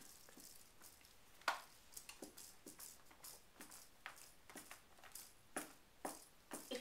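Pet cat making faint, irregular wet clicking and smacking sounds with its mouth.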